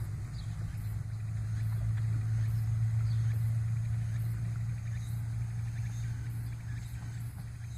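A vehicle's engine running with a low steady hum, growing louder to a peak about three seconds in and then slowly fading.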